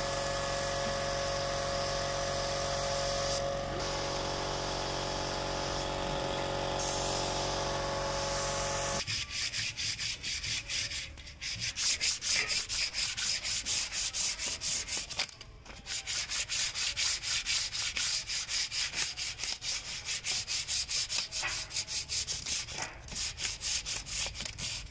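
A motor hums steadily for about nine seconds, then hand sanding takes over: sandpaper rubbed back and forth over cut-out fibreboard calligraphy letters in brisk strokes, about three a second, pausing briefly twice.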